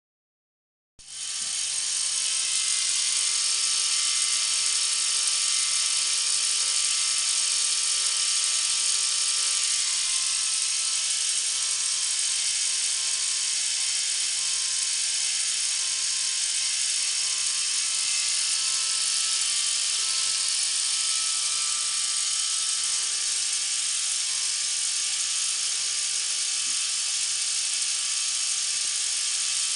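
K'nex motor and plastic gears whirring steadily as the chair swing ride spins. It starts suddenly about a second in.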